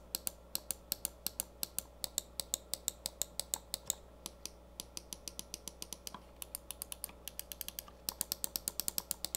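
Mouse buttons on a HyperX Pulsefire Core gaming mouse being clicked repeatedly, crisp sharp clicks about four or five a second, with short pauses around the middle and a faster run near the end.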